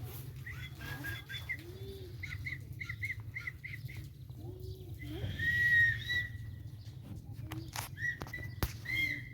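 Small animal chirping: a quick run of short high chirps, about four a second, then a louder, longer high squeal about five seconds in, with softer low warbling calls between.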